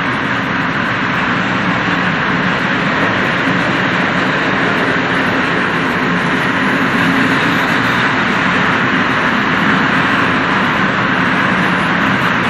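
Freight train of open-top wagons rolling past close by: a loud, steady noise of steel wheels running on the rails.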